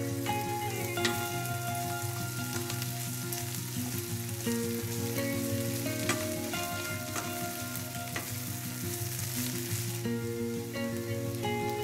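Sliced onions and peppers sizzling steadily in a stainless-steel frying pan, stirred with a wooden spoon that knocks against the pan a few times. Background music with held notes plays along.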